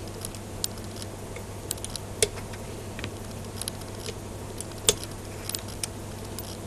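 Sparse light metallic clicks of 9.5 mm steel ball bearings being set one at a time into a greased bearing race of an antenna rotator's axle housing with a hand tool, the sharpest clicks about two and five seconds in. A steady low hum runs underneath.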